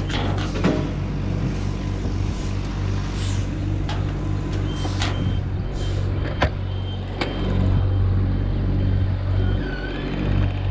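A large machine engine running steadily at an even speed, with scattered sharp knocks and clicks over it.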